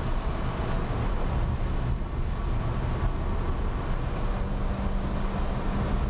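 In-car sound of a Ford Ka race car at speed on a wet track, about 70 mph: the engine running hard under a steady drone of wind and road noise.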